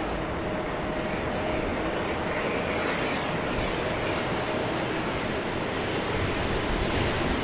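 Boeing 777-300ER's GE90 jet engines during the landing rollout on the runway, a steady rushing roar that grows slightly louder near the end.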